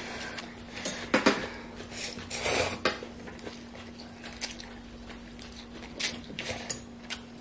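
Eating utensils clicking and clinking against a bowl during a ramen meal: scattered sharp clicks, with a short hissing rush about two and a half seconds in, over a steady low hum.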